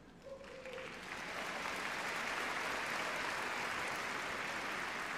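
Arena audience applauding, swelling over the first second and then holding steady.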